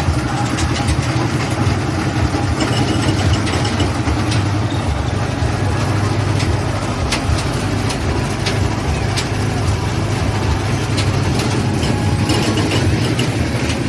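Garden toy train running: a steady low engine rumble with scattered clicks and knocks.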